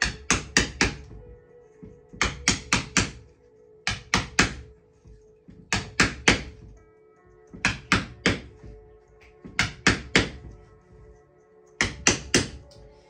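Mallet tapping a wedge to drive pressed cane into the chair seat's groove. The taps come in quick groups of about four, a group roughly every two seconds. Background music plays under it.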